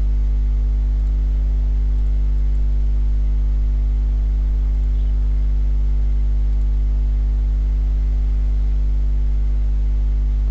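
Steady electrical mains hum, a loud low buzz at the 50 Hz mains frequency with a ladder of overtones above it, unchanging throughout.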